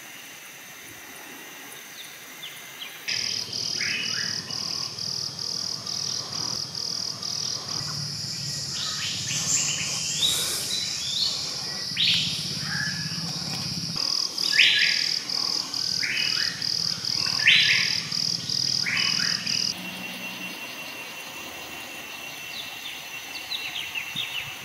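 Forest birds and insects calling. A fast pulsing call, about three pulses a second, starts about three seconds in and stops near twenty seconds. Loud short chirps and whistles sound over it, with a low hum underneath.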